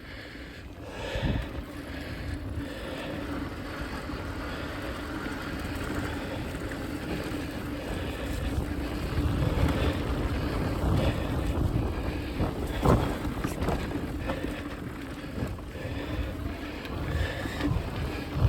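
Mountain bike rolling over a dirt trail: a continuous rough rumble with occasional knocks, and wind buffeting the microphone.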